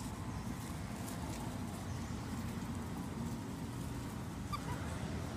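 Steady low outdoor background rumble with faint rustling, and two brief high-pitched chirps near the end.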